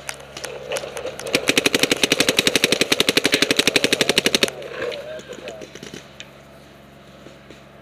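Paintball marker firing a rapid string of shots, about a dozen a second for some three seconds, starting about a second and a half in, with a few scattered single shots before it.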